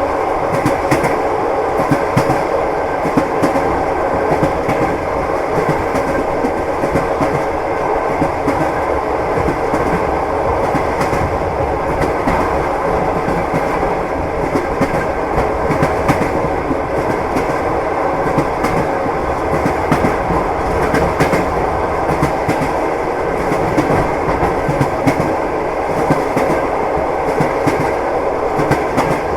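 Train wheels running on the rails: a steady rumble with frequent clicks and knocks of the wheels over the rail joints.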